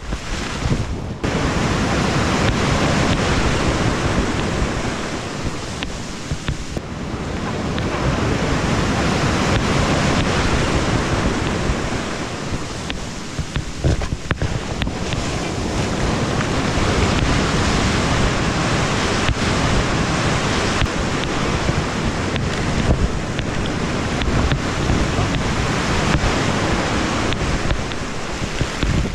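Shallow breaking surf rushing and foaming, with wind buffeting the microphone; the wash swells and eases as waves come and go.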